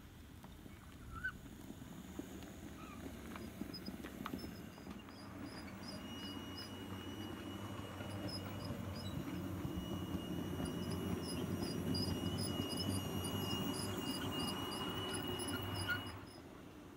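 Model railway train running along the track: a steady high motor whine with regular light ticking of the wheels over the rail. It grows louder as the train passes close and cuts off sharply about a second before the end.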